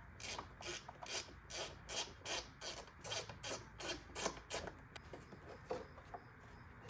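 Hand ratchet wrench worked back and forth on a bolt, rasping about three strokes a second, then slowing and turning irregular about five seconds in.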